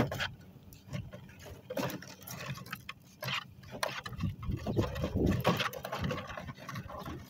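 Hoover Spin Sweeper outdoor sweeper pushed over the driveway, its spinning brush rattling and clattering irregularly as it sweeps up grass clippings and grit. A sharp knock comes right at the start.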